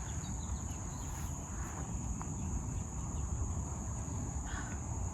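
Crickets chirring in a continuous high-pitched drone, over a low rumble.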